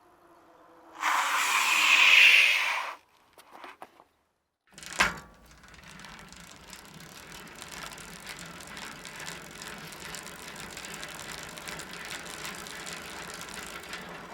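Bicycle sound effects. About a second in comes a loud rush of noise lasting about two seconds, then a sharp knock at about five seconds. After that a bicycle's drivetrain runs steadily with fast, dense ratchet-like ticking.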